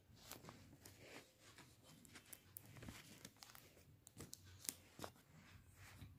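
Faint rustling and light taps of paper cut-out figures being handled and slid on a sheet of paper, in short scattered bursts.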